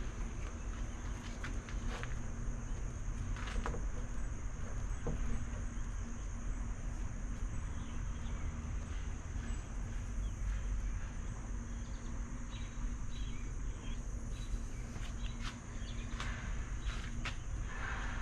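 Insects, crickets, chirring in a steady high background drone, with scattered light clicks and scrapes from a plastic spreader working body filler onto a fiberglass hood.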